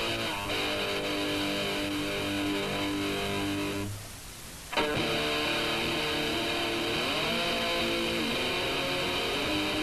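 Lo-fi cassette recording of a punk band practising, led by guitar playing held notes. The music drops away about four seconds in and cuts back in suddenly under a second later.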